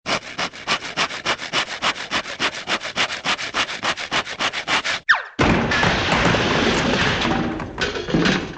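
Cartoon sound effects: a rapid rasping stroke repeated about six times a second for about five seconds, then a quick glide in pitch, then a dense continuous rasping noise that tails off near the end.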